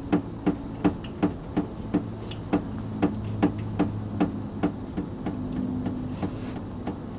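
Steady rhythmic knocking on a hard surface, about two to three knocks a second, even and unbroken.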